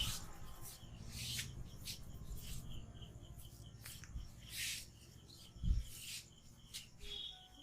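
Hands rubbing and massaging an oiled scalp and hair, making soft, irregular swishes. Birds chirp faintly in the background, and there is one dull thump near the end.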